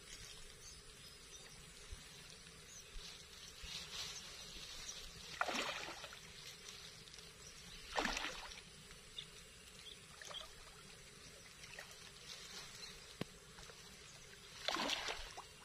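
A hooked fish thrashing at the water surface as it fights the line: three brief splashes, about five and a half seconds in, at about eight seconds, and just before the end, with a few fainter splashes between.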